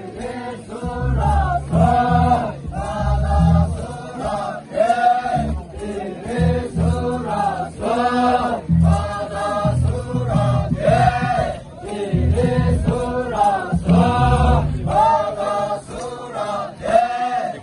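A group of Naga performers chanting in unison: short sung phrases repeated over and over in a steady rhythm.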